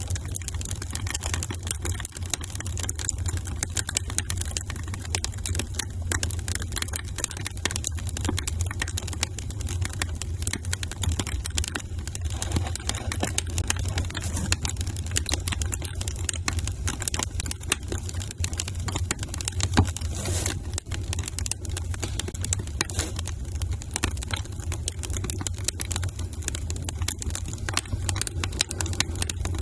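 Wood fire crackling in a fireplace: dense, irregular small pops and snaps over a steady low rumble, with one sharper pop about two-thirds of the way through.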